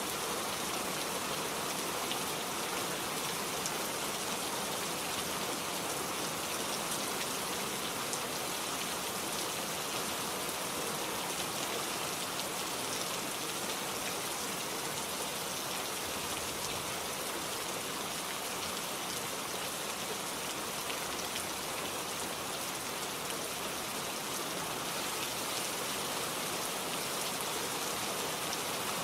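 Steady rain falling in a forest, a dense even hiss of drops with faint scattered patter.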